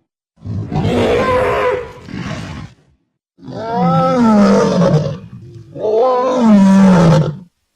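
Shin Godzilla roar sound effects: three separate roars of about two seconds each. The last two have a wavering pitch that sinks toward their end, and each stops abruptly.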